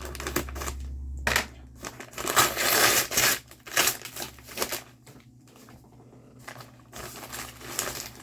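Packaging of a diamond painting kit crinkled and crushed by hand as it is opened. It comes in irregular crackling bursts, loudest about two to three and a half seconds in.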